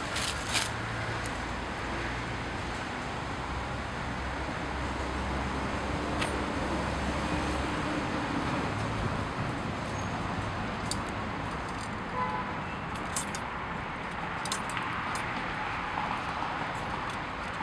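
Steady background rush with a low hum through roughly the first eight seconds, and scattered light clicks and clinks as the rake's wire tines and wooden head are handled.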